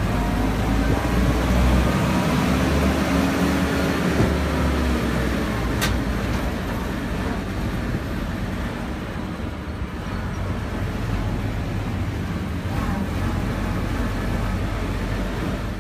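Open military jeep being driven on a dirt track, heard from the driver's seat: a steady engine drone with wind and road rumble, the engine note sliding a few seconds in. A single sharp click about six seconds in.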